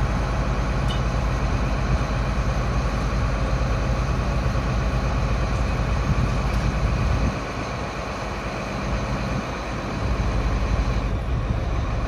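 Heavy diesel engine running steadily under a broad rushing noise, as a grain truck is unloaded into an auger hopper at grain bins. The low engine note eases off about seven seconds in and picks up again about three seconds later.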